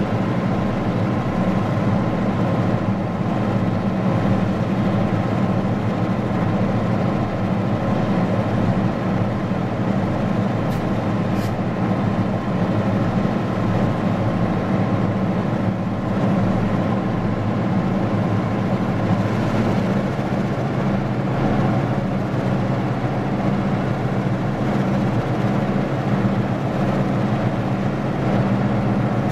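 Four EMD GP11 diesel-electric locomotives working at full throttle, a loud steady diesel drone, as they strain to pull a heavy sand train up a snowy grade after stalling.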